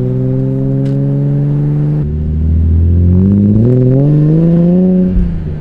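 BMW E46 M3's S54 straight-six, breathing through a six-into-one header, revving up under acceleration: the pitch climbs slowly at first, then faster through the second half, and drops as the throttle closes near the end.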